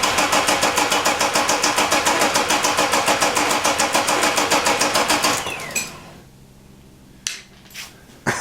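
BMW E30 325i straight-six engine being cranked over by the starter motor: a fast, even chugging of compression strokes for about five and a half seconds without the engine catching. The starter then cuts out and whines down.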